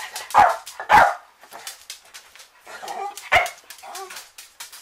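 Dog barking: three loud barks, about half a second in, at one second and a little past three seconds, with softer barks between them.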